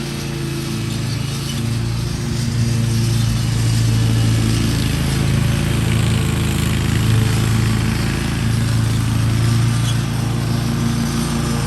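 Zero-turn lawn mower engine running steadily while mowing, its low hum wavering slightly in pitch and level.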